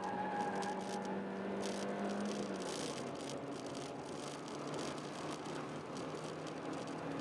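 A 2005 Honda Jazz's 1.3-litre four-cylinder engine pulling hard on track, with steady road and wind noise and light rattles. The engine note climbs a little, then drops about two and a half seconds in and carries on at the lower pitch.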